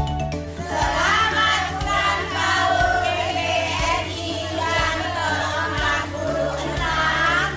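A song: voices singing together over backing music.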